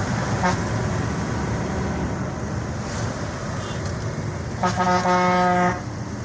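Steady engine and road noise from inside a moving vehicle on a highway, with a vehicle horn sounding once for just over a second near the end.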